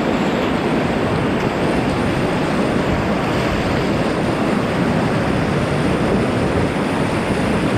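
Whitewater rushing loudly and steadily around a creek kayak running a rapid, with water splashing against the bow.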